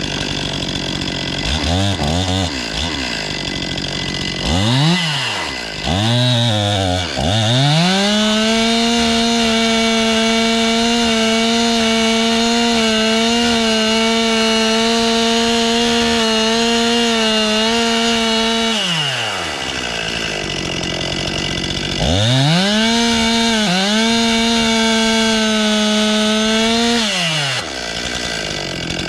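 Two-stroke chainsaw milling wood. It idles and is blipped up several times in the first seven seconds, then runs held at full throttle for about eleven seconds with a slightly wavering pitch. It drops back to idle, runs at full throttle again for about five seconds, and falls back near the end.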